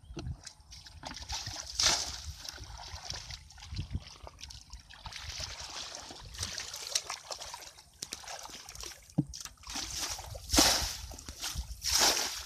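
Muddy water in a shallow rice-field ditch splashing, sloshing and trickling as it is stirred by hand and scooped with a plastic bucket. The splashes come irregularly, and the loudest are near the end.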